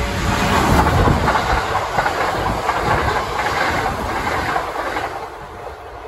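Kintetsu electric train running past on the track, wheels clattering over the rails, the noise dying away near the end.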